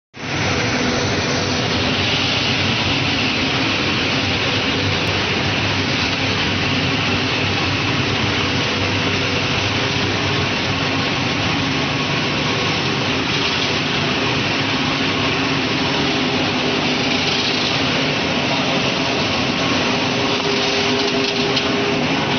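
Brewery spent grain drying line running: centrifugal blower, rotary drum dryer and geared drive motors making a steady, dense machine noise with a low hum.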